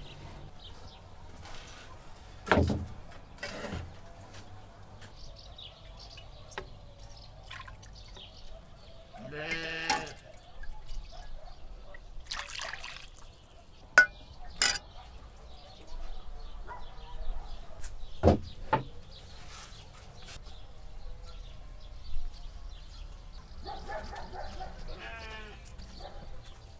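Metal tongs and a ladle clinking against a metal cauldron while food is served and soup is ladled out, with liquid dripping. A farm animal bleats about ten seconds in and again near the end.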